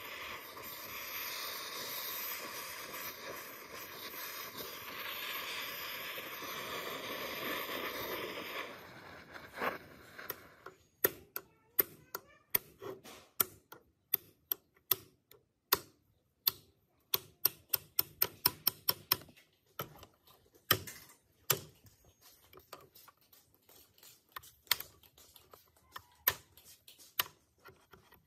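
A steady hiss for about eight seconds, then a long run of sharp clicks and taps, several a second at the busiest, as small metal sewing-machine parts are worked on and handled.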